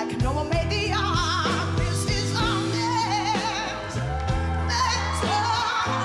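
A woman singing solo into a microphone with a wide vibrato on her held notes, over a band accompaniment with sustained low notes.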